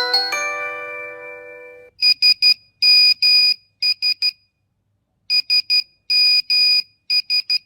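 A melodic phone ringtone's last chimes fade out over about two seconds. Then a single-pitch mobile-phone beep taps out 'SMS' in Morse code (three short, two long, three short beeps), twice: the classic Nokia text-message alert.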